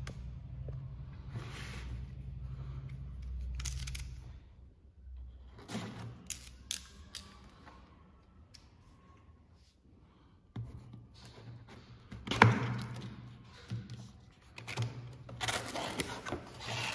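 Cardboard box being handled and opened by hand: scattered rustles and scrapes of card, one sharp thunk about two-thirds of the way through, and dense rustling of the flap near the end. A low steady hum sounds under the first few seconds.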